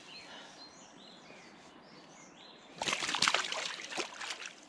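Sudden splashing in shallow river water as a released chub kicks free of the angler's hands, about three seconds in. Before it, faint bird calls over the quiet riverside.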